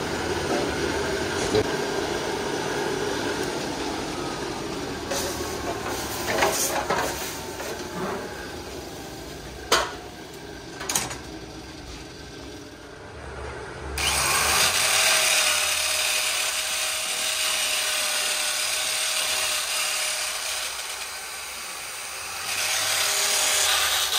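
Steady hiss of a coal forge fire being blown, with a few metal knocks and clinks as a copper pot is handled over it. About halfway through, an electric drill starts running steadily with its attachment turning in a metal bowl of liquid. The drill eases off briefly near the end, then picks up again.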